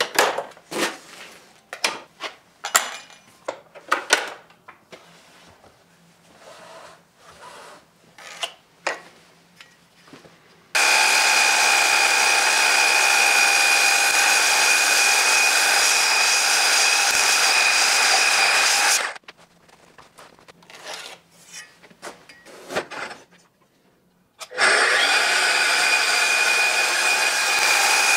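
Knocks and clatter of an oak beam being set up on a sliding mitre saw. Then the saw's motor and blade run steadily with a high whine for about eight seconds as it cuts through the oak. After more knocking, the saw starts again about three-quarters of the way in and runs to the end.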